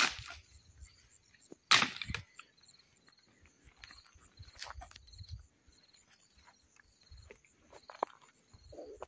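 Dry wood branches snapping: a sharp crack at the start and another about two seconds in, then lighter cracks and twig snaps. Insects chirp steadily in the background.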